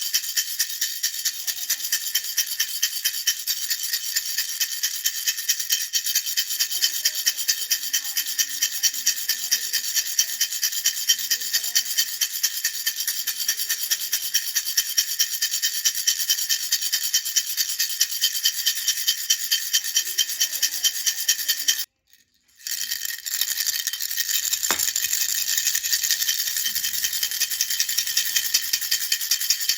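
Baby rattle shaken in a quick, even rhythm, a bright, hissy rattle. It drops out for under a second about two-thirds of the way through, then carries on.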